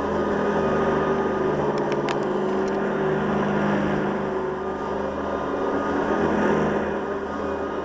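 Hoover Guardsman upright vacuum cleaner running steadily on a rug, its motor hum mixed with the noise of the brush roll, which the owner puts down to the roll's plastic bushings being brand new. A few light clicks about two seconds in.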